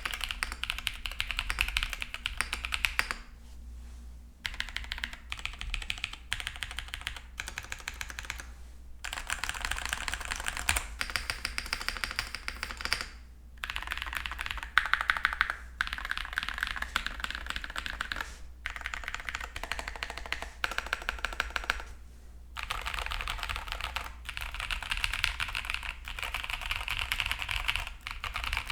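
Typing on a KBDFans Pluto tenkeyless mechanical keyboard with lubed tactile frankenswitches (Cherry Nixie housings, Boba U4T stems and springs) in an o-ring-mounted case with an aluminium plate and foam. A steady stream of keystrokes is broken by short pauses every four or five seconds.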